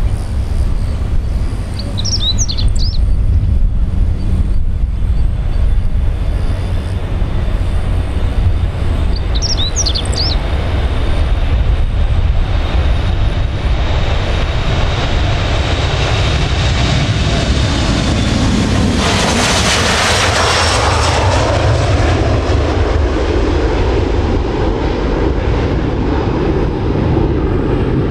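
Boeing 737-400 jet's CFM56-3 turbofan engines at takeoff power: a steady rumble with a high fan whine that rises slightly in pitch. About two-thirds of the way in the engine noise jumps to a loud roar as the jet climbs away. A bird chirps twice over the rumble.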